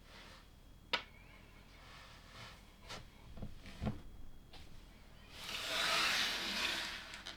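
LEGO plastic pieces being handled: a sharp click about a second in, a few light taps and knocks, then a rustle lasting about a second and a half.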